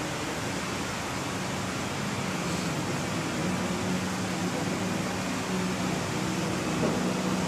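Steady room noise: the even hiss and low hum of a running fan.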